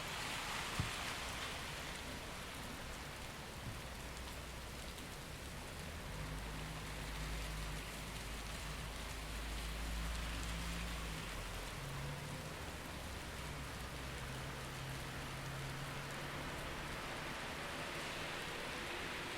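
Steady rain falling on a city street, with a low rumble of traffic underneath. A vehicle's engine hum stands out from about six to eleven seconds in, then again more faintly. A single sharp tick just under a second in.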